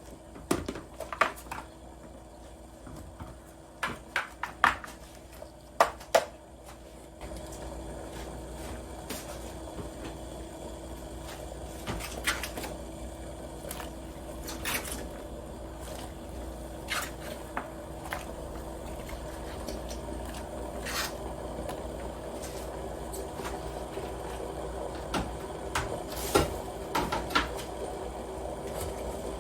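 Kitchen cooking sounds: a run of sharp clicks and knocks of utensils and dishes in the first six seconds, then a steady rushing noise sets in about seven seconds in and slowly grows louder, with light clinks now and then.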